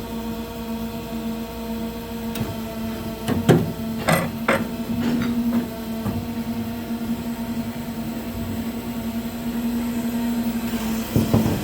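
Indotech NC bandsaw machine running with a steady hum, with a few sharp metallic clanks about three and a half to four and a half seconds in and lighter knocks soon after.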